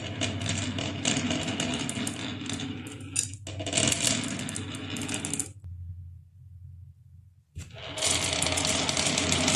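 Marbles rolling and clattering down a marble run, a dense rapid clicking and rattling. It drops out to a low hum for about two seconds past the middle and comes back loudly near the end.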